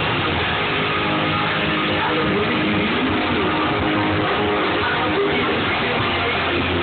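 Rock band playing amplified during a sound check, with electric guitars prominent and a steady, full-band sound.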